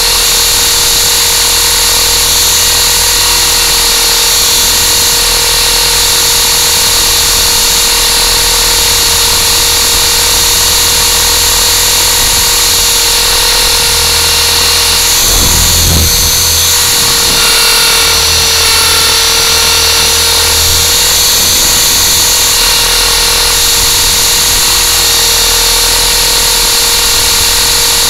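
A battery-powered RC hover aircraft's electric motors and rotors, heard from its onboard camera, whining steadily as it holds a hover. The pitch wavers slightly with small throttle corrections, and a brief low rumble comes about halfway through.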